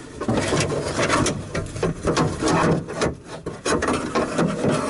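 Car door latch and lock actuator assembly being worked out of the door shell with its cables, rubbing and scraping with many short knocks against the inside of the door.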